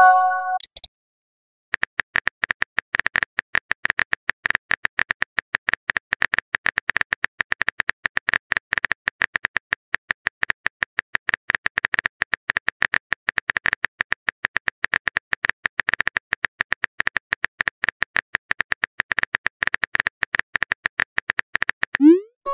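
Simulated phone-keyboard typing clicks, a rapid, even run of short taps, as a long text message is typed. A short message chime opens it, and a rising whoosh of a message being sent comes near the end.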